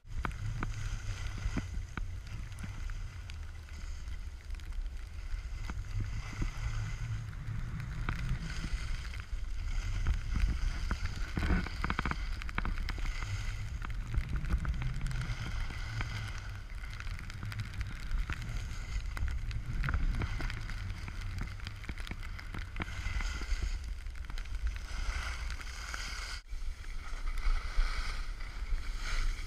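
Wind rushing over and buffeting a pole-mounted action camera's microphone as a skier runs downhill, with the hiss and scrape of skis on packed snow.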